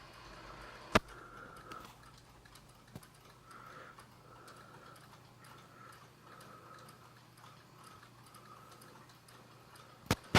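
Soft snoring breaths of a sleeping woman, faint and repeating every second or so, broken by a few sharp clicks: a loud one about a second in, a small one around three seconds, and two close together near the end.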